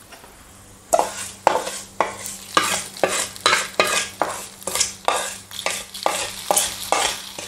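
A hot coconut-oil tempering of fried shallots, mustard seeds, curry leaves and dried red chillies is scraped out of an aluminium pan with a wooden spatula into sambar, sizzling as it goes in. The sound comes in short strokes, about two a second, starting about a second in.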